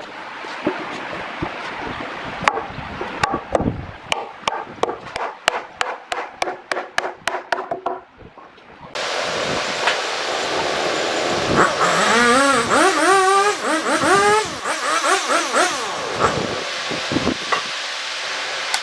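Sharp knocks on timber joinery, sparse at first and then coming steadily at about three a second. After a sudden change to a steady hiss, a motor engine revs up and down for a few seconds.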